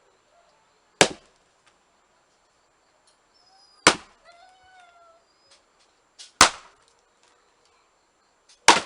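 Blacksmith-forged axe splitting firewood: four sharp chops about two and a half seconds apart, each ringing briefly.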